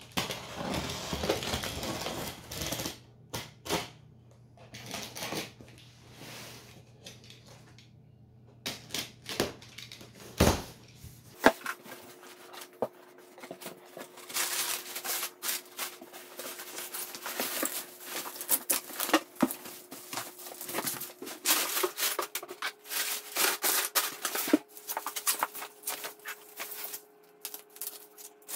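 Unboxing a parcel. First a utility knife slits the packing tape on a cardboard carton, then the cardboard and crumpled kraft paper packing rustle and crackle. Near the end, bubble wrap crinkles and crackles with many sharp clicks as it is handled and cut.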